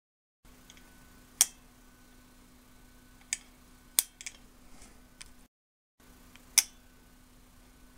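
About five sharp, irregularly spaced clicks from a swing-arm desk lamp being switched and handled to test its repaired LED bulb, over a faint steady hum.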